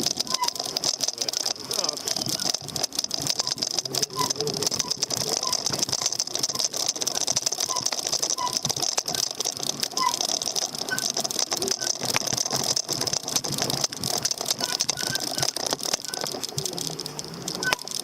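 Rattling and clicking of a handlebar-mounted camera and e-bike while riding over the road, with a steady high hiss.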